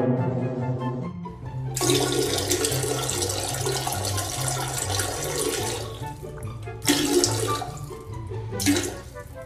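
Toilet flushing: a rush of water lasting about four seconds, then two shorter rushes, over background music with a bouncy bass line.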